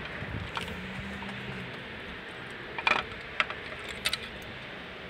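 A handful of light clicks and knocks as a Toyota 1GR-FE V6's valve cover is worked loose and lifted off the cylinder head.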